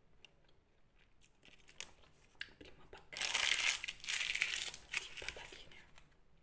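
A paper fries bag being crumpled up in the hands: light rustles first, then a dense burst of crinkling about three seconds in that dies away about two seconds later.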